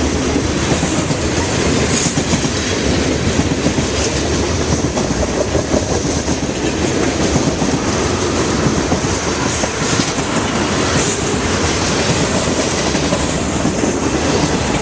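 Freight cars of a long freight train rolling past, steel wheels on rail making a steady, unbroken rumble and clatter.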